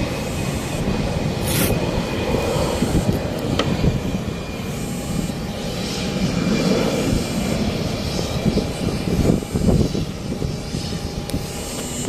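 Steady aircraft-engine drone on an airport apron: a continuous rush with a faint, even high whine over an uneven low rumble.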